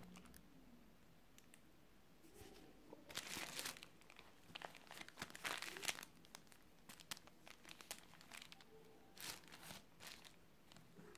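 Faint crinkling and rustling of packets of baking supplies being handled, in several short bursts.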